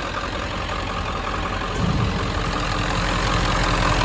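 Ford 7.3-litre Power Stroke turbo-diesel V8 idling steadily, growing louder about two seconds in.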